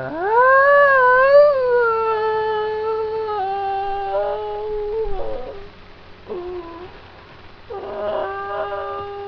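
A person's long, wordless howl, rising at the start and then held on one pitch for about five seconds before it breaks up. A short cry follows, then another held howl near the end.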